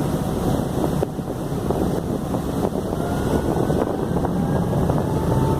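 Harbour ferry under way: the steady rumble of its engine and the water, with wind blowing on the microphone.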